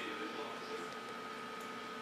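Steady high-pitched electrical whine with a lower hum under room noise, with a couple of faint ticks.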